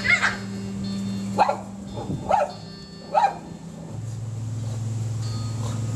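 Shih tzu barking: four short barks, about a second apart, in the first three seconds or so.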